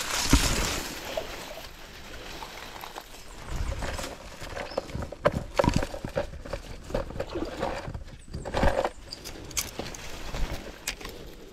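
A water splash in the pond at the snakehead lure at the start, then rustling of grass and leaves with scattered short knocks and clicks as the angler moves through the brush with the rod.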